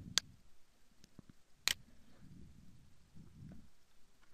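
Two sharp computer mouse clicks about a second and a half apart, over faint room noise.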